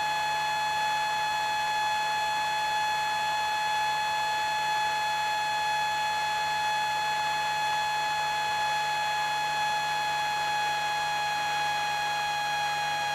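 A steady, high-pitched electronic tone on the aircraft intercom audio, holding one pitch without any change, with a faint low hum beneath it.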